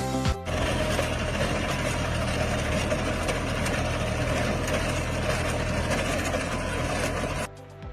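An engine running steadily under a dense mechanical noise, cutting off suddenly near the end.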